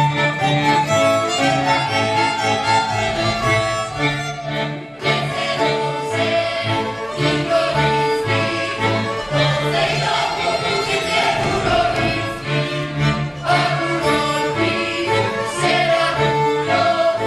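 Polish folk band playing a dance tune on fiddles and accordion, with a steady, repeating bass line underneath.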